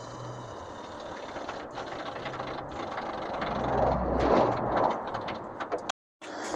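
Compressed air hissing into a truck's suspension air bags through a tester line as the chassis is raised, with a low hum underneath. The rushing swells about three seconds in and cuts off abruptly near the end.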